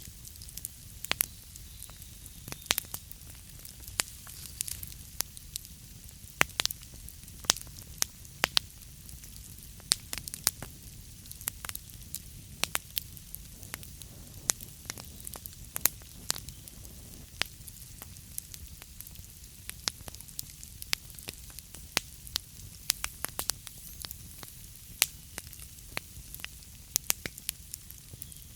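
Wood fire burning in a fireplace, crackling with many sharp pops at irregular intervals over a steady low rumble and hiss.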